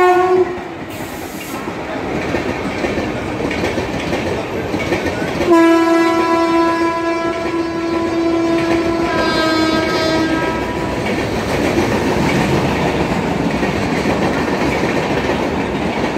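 Electric locomotive horn blown briefly at the start, then held in one long blast from about five seconds in to about eleven, with a second tone joining near the end of the blast. Underneath, the steady rumble and clickety-clack of an LHB express's coaches running through the station.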